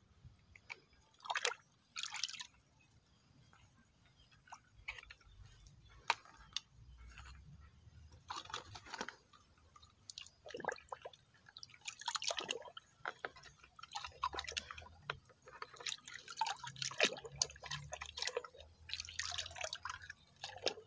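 Water splashing and dripping in short, irregular bursts as a muddy toy car is washed by hand.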